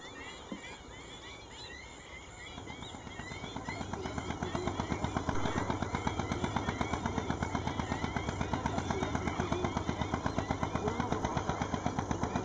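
Boat engine running with a rapid, even thumping of about four to five beats a second, growing louder over the first few seconds as the boat comes closer, then steady. Repeated short rising bird chirps sound over it in the first few seconds.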